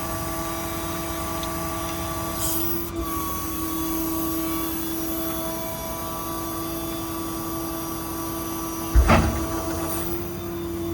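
Steady mechanical whine and drone of the service truck's running engine and hydraulic system, holding one pitch, with a single loud clunk about nine seconds in.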